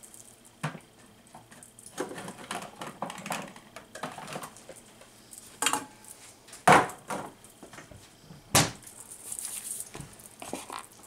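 Kitchen containers and measuring utensils being handled and set down, with light clicks and rattles and a few sharp knocks in the second half.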